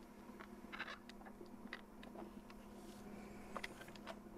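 Faint small clicks and taps of RC crawler body clips being pushed in and the hard-plastic body handled, over a low steady hum.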